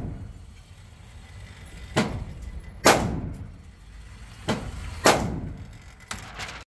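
Gunshots with a short echo after each, coming in pairs: two shots just under a second apart, two more about 1.5 seconds later, then a fainter shot near the end.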